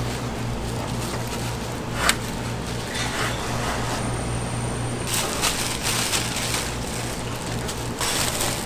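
A steady low hum, with a sharp click about two seconds in and short bursts of noise in the second half.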